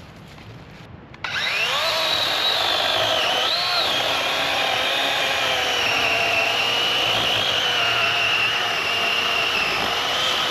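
Battery-powered electric chainsaw spinning up with a rising whine about a second in, then cutting through a fallen log with a steady whine that sags a little in pitch under load. The wood cuts easily, too easily for cherry.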